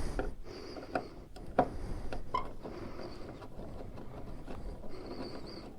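Scattered light clicks and taps of small motorcycle parts being handled during hands-on work behind the speedometer, over a low steady rumble.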